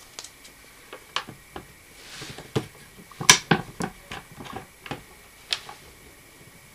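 Plastic hinge cover inserts being handled and snapped onto the plastic hinges of a toilet seat: a series of light clicks and taps, the sharpest about three seconds in.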